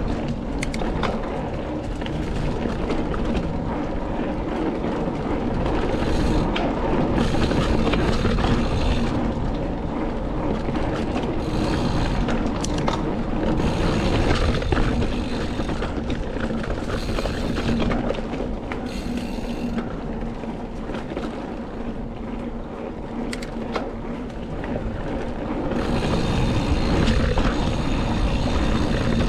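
Devinci Kobain hardtail mountain bike being ridden on a trail. There is a steady low rumble of wind on the microphone and tyre noise, with scattered clicks and rattles from the bike. Several stretches of added hiss come and go, loudest near the end.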